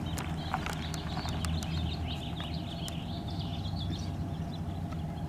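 A pickup truck's engine running at low speed a short way off, a steady low hum, with a few light clicks.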